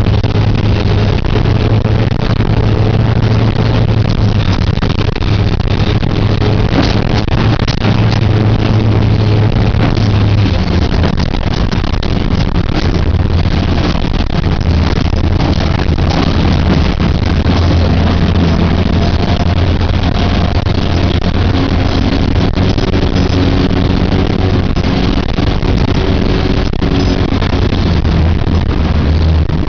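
Cross-country rally car's engine running hard under load, its pitch dropping a step about ten seconds in and then holding steady, with many short knocks and rattles over the rough muddy track.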